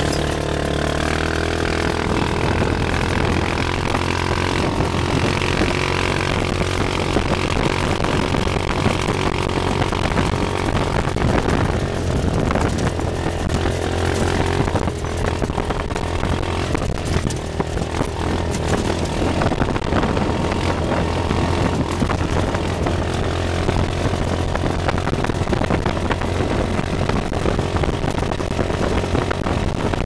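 Roketa 250cc dune buggy's CN250 single-cylinder four-stroke engine running steadily through its exhaust while driving, with road and wind noise.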